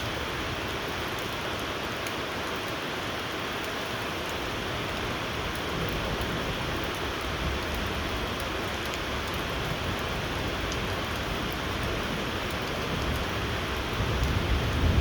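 Steady rain falling, an even hiss with scattered small drip ticks. A low rumble swells near the end.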